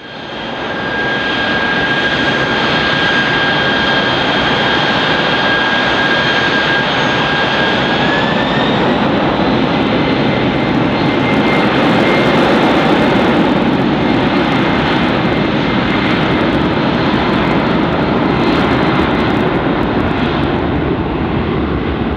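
Aircraft engine running loudly: a broad roar with a steady high whine over it, the whine rising a step in pitch about eight seconds in.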